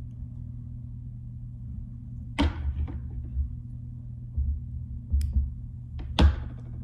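A few sharp clicks and short scrapes from fly-tying tools handled at the vise, the loudest about six seconds in, over a steady low hum.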